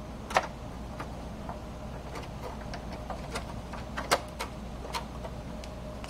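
Scattered clicks and taps of a plastic cover and metal plate being worked into place in a Dell Optiplex 755 desktop case, the sharpest about half a second in and again about four seconds in, over a steady low hum.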